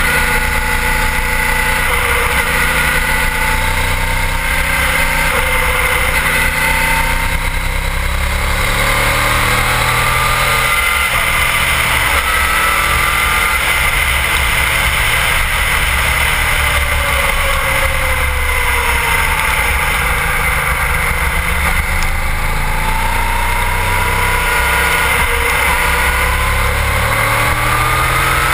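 Sport bike's engine running hard on track, its pitch dropping several times as the rider slows for corners and climbing again as the throttle opens, over steady wind rush on a camera mounted low on the fairing.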